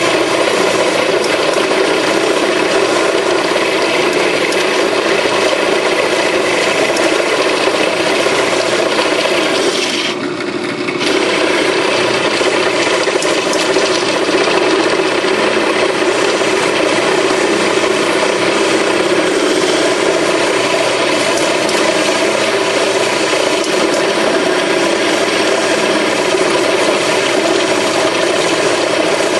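Bench drill running a step drill bit into the hat of a cast-iron brake rotor, cutting a new lug hole: a steady, rough grinding of the bit on metal. The cut eases off for about a second roughly ten seconds in, then carries on.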